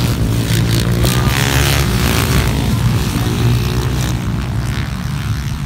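Small motorcycle engines racing on a dirt flat track: a steady, loud engine note, with a noisier surge about one to two seconds in.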